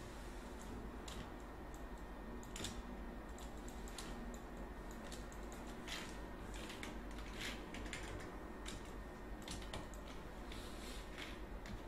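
Irregular clicks of a computer keyboard and mouse, a dozen or so scattered through, bunched together in the middle and near the end, over a steady low hum.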